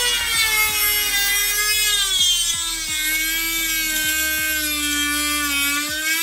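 Electric power tool motor running steadily, its whine sagging slowly in pitch and partly recovering as it is loaded.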